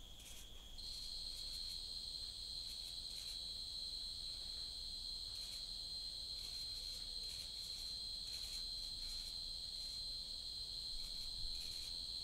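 Steady, shrill insect chorus. A second, slightly higher trill joins about a second in, and both carry on evenly.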